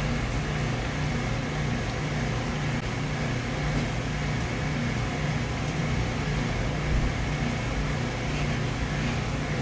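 Steady low mechanical hum, with no sudden sounds standing out.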